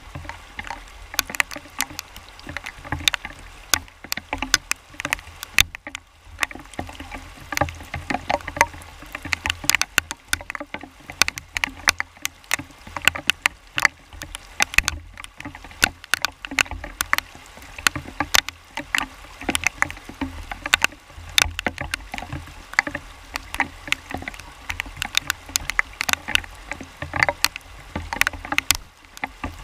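Fast-flowing river in spate rushing over rocks, heard up close, with many sharp, irregular splashes breaking through the steady rush.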